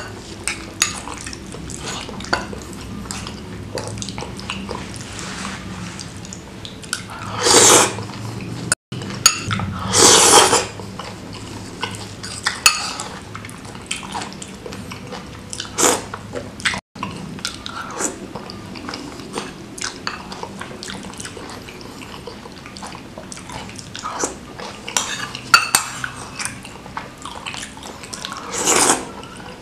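Close-up eating sounds from a bowl of chicken noodles: a metal fork clinks and scrapes against a ceramic bowl, with wet chewing between the clinks. Three louder noodle slurps come at about seven, ten and twenty-nine seconds in.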